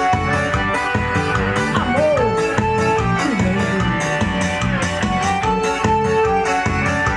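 Forró band playing live, with drums keeping a steady beat under guitar and held melody notes.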